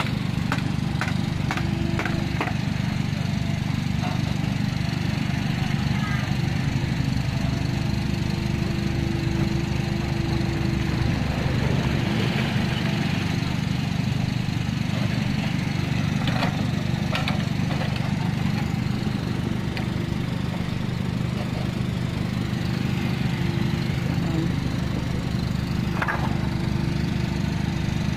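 Komatsu PC45 mini excavator's diesel engine running steadily at working revs, with scattered sharp knocks, a cluster of them in the first few seconds and a few more later on.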